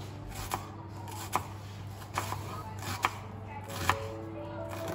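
Kitchen knife slicing through half an onion on a plastic cutting board, each cut ending in a sharp tap of the blade on the board, five times about a second apart.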